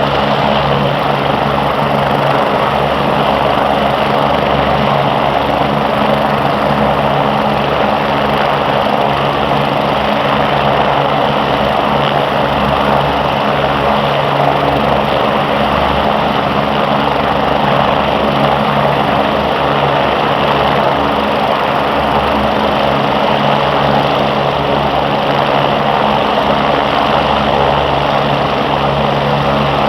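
MBB/Eurocopter BK117 twin-engine helicopters flying, with a loud, steady rotor and turbine sound.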